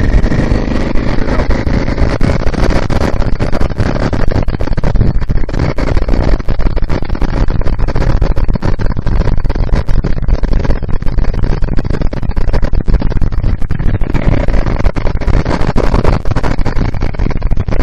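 Loud wind rush and buffeting on the microphone of a motorcycle-mounted camera at road speed: a dense, steady rumble with constant rapid crackling gusts.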